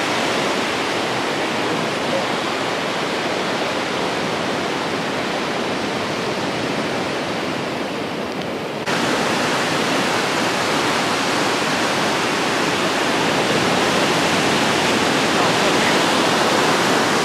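Ocean surf breaking on a beach: a steady rush of water noise, stepping up slightly louder at a cut about nine seconds in.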